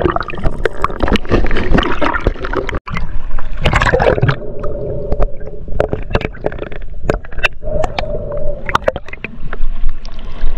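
Water splashing and gurgling around a camera carried by a swimmer moving through the water, with many sharp knocks. A steady hum comes and goes partway through.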